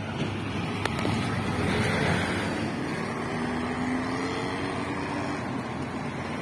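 Cars passing on a road: engine and tyre noise swells, loudest about two seconds in, then a passing engine's hum climbs slightly in pitch before fading.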